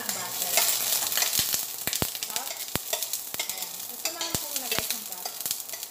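Butter sizzling as it melts in a hot stainless steel frying pan, stirred with a metal slotted spatula that clicks against the pan several times.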